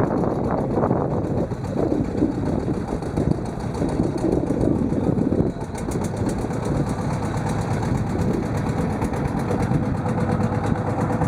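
Boat engine running steadily as the boat moves over the sea.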